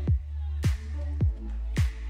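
Background electronic dance music: a steady kick drum about twice a second with a sharp clap on every other beat, over a deep held bass.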